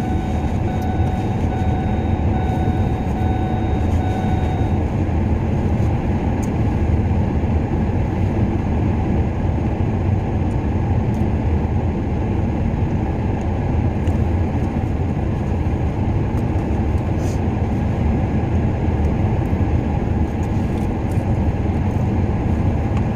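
Steady, loud low rumble and hiss inside a vehicle cab: the engine running with the heater fan blowing. A faint high whine sits on top for the first five seconds or so.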